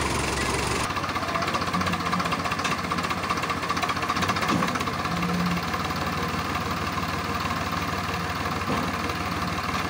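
Diesel tractor engines running steadily, among them an old Swaraj 855's three-cylinder diesel, hitched to a trolley loaded with bricks in deep mud. The sound changes character about a second in.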